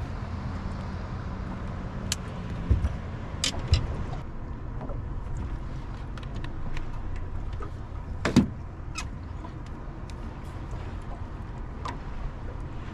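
Steady low rumble of wind and boat noise, with scattered clicks and knocks from fishing tackle and handling in the boat; the sharpest knock comes about eight seconds in.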